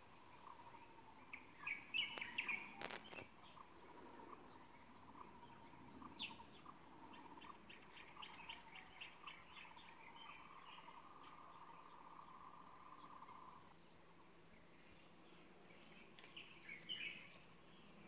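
Faint wild birdsong: bursts of chirping calls a couple of seconds in and again near the end, with a run of quick ticking notes in between. A thin steady buzz runs underneath and stops about three-quarters of the way through, and a single sharp click comes about three seconds in.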